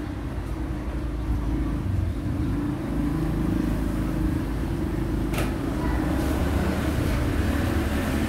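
Steady low engine rumble, with a single sharp click about five seconds in.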